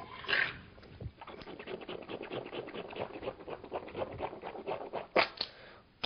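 A man rinsing his mouth and nose with a handful of water: a quick, rhythmic swishing of water in the mouth for about four seconds, then two sharp expulsions near the end as the water is spat and blown out.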